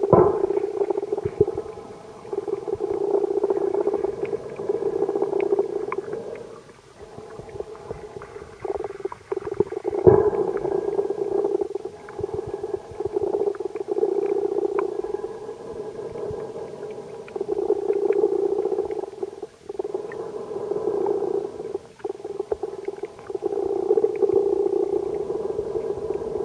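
A steady muffled hum, recorded with the camcorder underwater, swelling and fading every few seconds, with scattered faint clicks.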